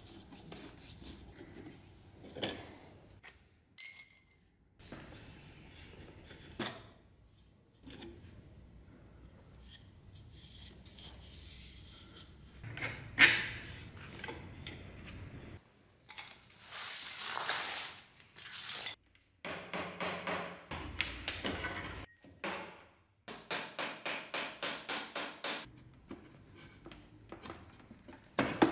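Flat-blade screwdriver scraping and prying at the joints of an old wooden table, in short separate stretches, with knocks of the wooden legs and rails being handled. Late on comes a quick run of about ten short strokes, and a sharp knock right at the end.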